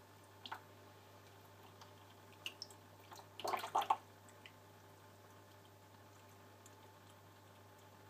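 Cat lapping water from a pet drinking fountain's bowl: a few scattered small wet laps, then a quick run of them a little past three seconds in, the loudest part.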